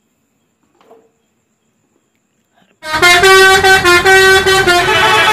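Near silence, then about three seconds in a bus's multi-tone musical horn (an Indonesian 'telolet' horn) starts up loudly, playing a tune of held notes that change every fraction of a second.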